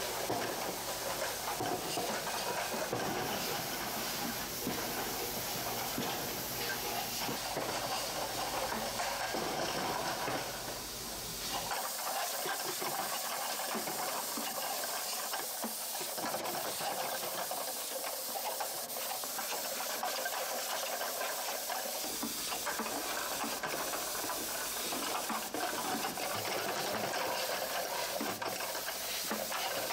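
Automatic bottle unscrambler with integrated print-and-apply labeler running: steady machine noise with light ticking and clatter of plastic bottles and a hiss of air. A low hum drops away about twelve seconds in.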